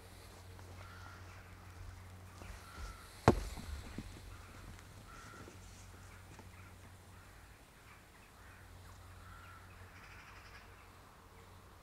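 Several short bird calls a few seconds apart, with one sharp crack about three seconds in, the loudest sound.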